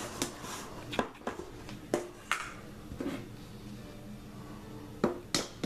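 Irregular clicks and knocks of a metal food can being handled: its plastic lid coming off and a handheld can opener clamped onto the rim, with two sharp clicks about five seconds in.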